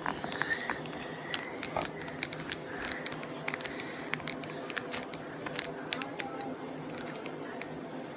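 Irregular soft clicks and crackles of a sticky toilet-paper-and-shampoo slime being stirred and squished in a plastic bowl, over a faint steady hum.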